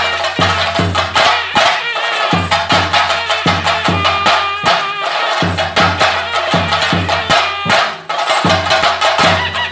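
Chenda drums beaten with sticks in a dense, fast rhythm, with a deep stroke about every two-thirds of a second. Wavering pitched lines sound above the drumming.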